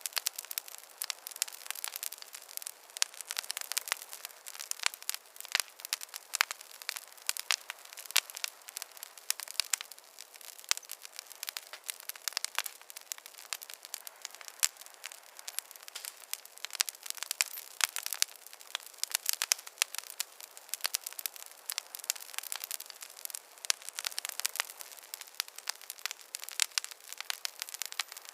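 Wood fire crackling: a dense, irregular run of small sharp pops and snaps over a soft hiss.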